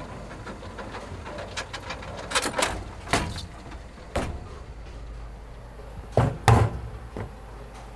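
A series of sharp knocks and thuds over a low steady hum, the loudest two close together about six seconds in.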